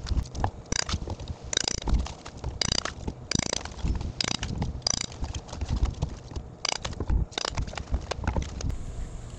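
Rigid foam insulation being cut, pried and scraped off the concrete face of an insulated concrete form wall by hand: irregular scraping and crunching strokes.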